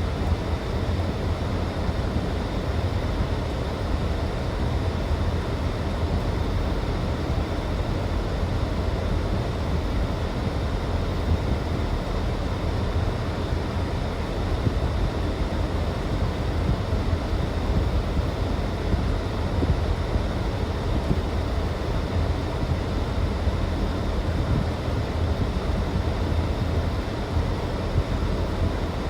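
Steady rumble and hiss of interstate highway traffic.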